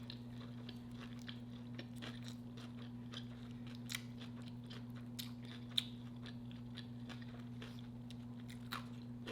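A person chewing food close to the microphone, many small clicks with a sharper one about four seconds in and another near six seconds. A steady low electrical hum runs underneath.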